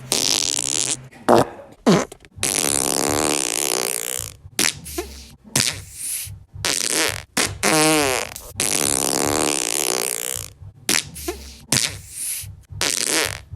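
A rapid string of farts one after another, from short pops to long hissing ones, a few of them with a wavering buzzing pitch.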